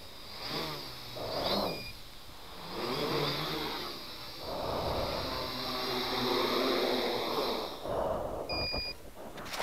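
X500 quadcopter's brushless motors and propellers whining, the pitch rising and falling in several swells as it lifts off, hovers and sets down. A short electronic beep comes about two seconds in and a longer one near the end.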